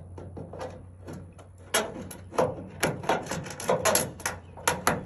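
Hand tin snips cutting the end of a sheet-metal rain downspout: a quick run of about a dozen sharp metal snips, starting about a second and a half in.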